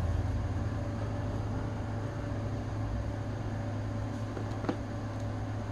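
Steady low electrical hum with faint background hiss, and one small click near the end.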